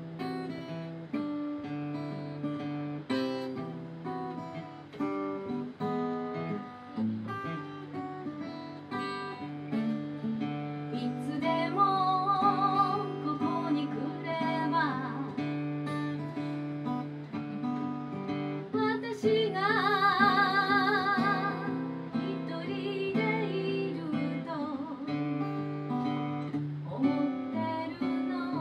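Acoustic guitar played solo with a steady bass line under the chords. A woman's singing voice comes in about twelve seconds in, holding notes with a wide vibrato, and sings again through the second half.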